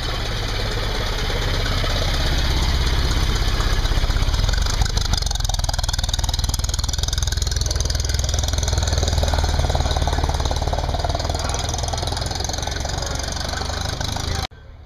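Engine of an early open touring car running as the car pulls away and drives off at low speed, a steady low rumble. The sound cuts off abruptly near the end.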